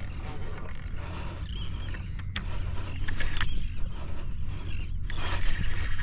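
A fishing reel being cranked against a hooked fish, the rod bent hard under load. A few sharp clicks sound over a steady low rumble of wind on the microphone.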